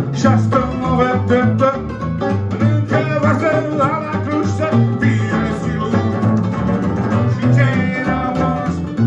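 Live rock'n'roll band music: a red hollow-body electric guitar and an upright double bass playing a steady, stepping bass line, with a table-mounted string instrument joining in.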